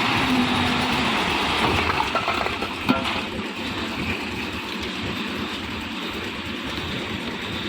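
Concrete mixer machine running steadily, with a sharp knock about three seconds in.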